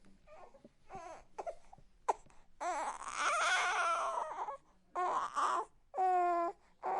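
Newborn baby crying: a few short whimpers, then a long wail about two and a half seconds in, followed by shorter cries with breaths between them.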